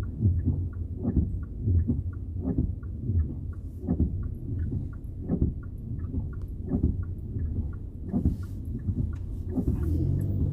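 Car cabin on the move in the rain: a steady low rumble from the engine and road, with a regular thumping and a light ticking of about three ticks a second running through it.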